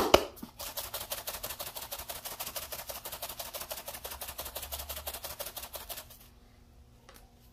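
A spice shaker jar of dried oregano shaken rapidly over a pot of vegetables, making a quick, even rattle of many ticks a second that stops about six seconds in. A couple of sharp clicks come right at the start.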